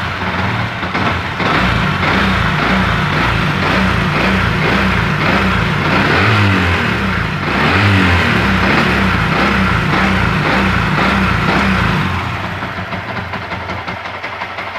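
Yamaha MX King 150's single-cylinder four-stroke engine running just after a start, revved up and down twice around six to eight seconds in, then dropping back to a quieter idle near the end. The freshly rebuilt head, with its valves reseated and re-adjusted on a custom racing camshaft, sounds smooth and solid.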